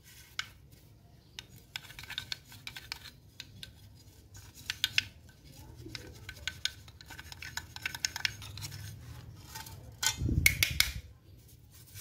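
Small paintbrush scrubbing inside the motor housing of a handheld electric circular saw, a run of short dry scratching strokes against the casing. About ten seconds in, a louder knock and rattle as the housing is handled.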